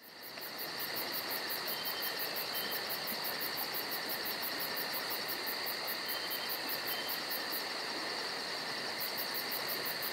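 Crickets chirping steadily, the stock 'crickets' ambience sound effect, fading in over the first second, with a rapid high pulsing chirp.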